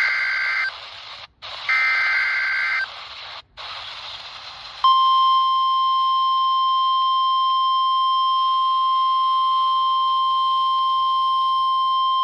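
NOAA Weather Radio emergency alert on a RadioShack 12-254 weather radio. Two short bursts of buzzing digital SAME header data come about a second apart, the first already under way, with radio hiss between them. About five seconds in, the steady 1050 Hz warning alarm tone starts and holds, louder than the bursts.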